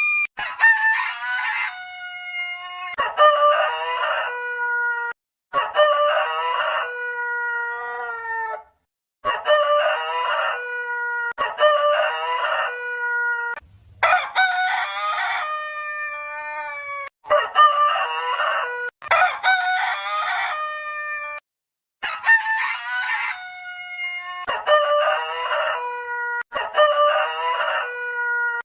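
A rooster crowing over and over, about a dozen crows in quick succession. Each crow is a choppy rising opening followed by a long held final note. The crows are spliced back to back with abrupt cuts between several of them.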